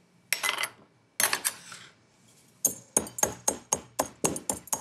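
Chopped yam and Job's tears going into a ceramic mortar with two short rattles, then a wooden pestle pounding them in quick, even knocks, about five a second, starting a little past halfway.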